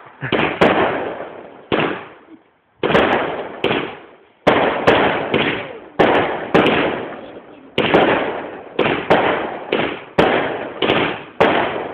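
Aerial fireworks bursting in quick, uneven succession: about fifteen sharp bangs, each trailing off over half a second or so, with a short lull near the two-second mark. Recorded on a phone, which cuts off the highest sounds.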